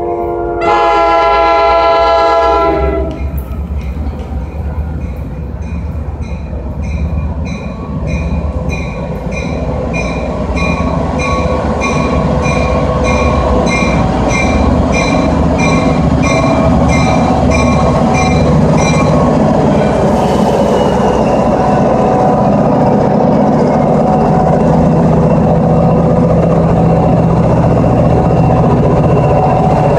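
Tri-Rail EMD GP49 diesel locomotive (12-cylinder EMD 645 engine) sounding its multi-tone horn in one blast of about two and a half seconds. A bell then rings at an even beat for about fifteen seconds. The locomotive's engine and wheels rumble, growing louder as it arrives alongside, with a brief falling squeal about twenty seconds in.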